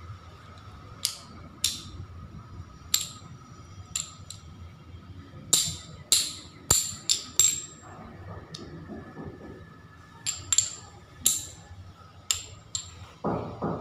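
Small glazed ceramic tiles clicking as they are picked up and set down one by one on a hard table top: sharp clicks with a short ring, some in quick runs of three or four.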